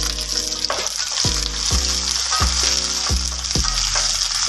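Curry leaves, green chillies and garlic sizzling steadily in hot coconut oil with mustard seeds, with a spatula stirring the pan near the end: the tempering stage of a Kerala curry. Background music with a steady beat plays under it.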